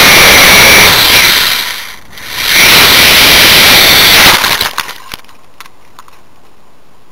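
Drone motors and propellers running loud with a steady high whine, dipping briefly about two seconds in, then cutting out about four seconds in. A few sharp clicks follow, then only a faint hiss.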